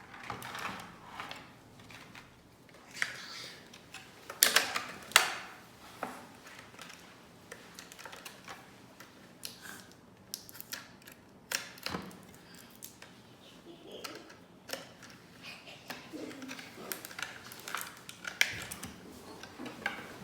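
Small plastic toy pieces being handled and freed from their packaging: irregular clicks, taps and light rustling, with two sharper snaps about four and a half and five seconds in.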